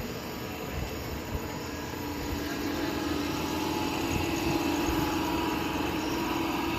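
A motor vehicle's engine running, its hum growing louder from about two seconds in over steady road noise.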